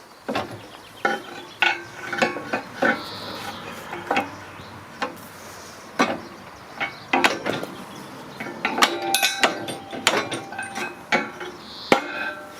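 Irregular metallic clanks and clinks of steel tools and parts being handled, many with a short ringing tone, coming thicker in a run of clatter partway through.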